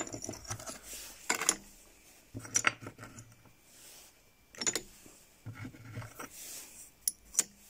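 Metal CPU lids (copper heat spreaders) clinking and clattering as they are dropped onto the metal pan of a digital scale, several separate clatters a second or two apart, the last two close together near the end.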